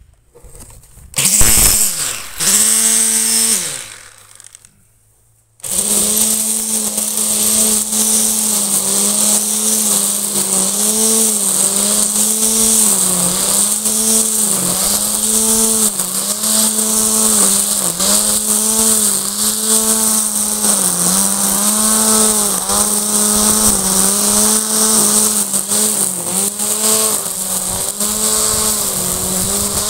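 Patriot ELT 1000 Garden electric string trimmer. Its motor is switched on in two short runs that wind down, then runs continuously from about six seconds in. Its pitch dips about once a second as the spinning line bites into tall grass with each sweep.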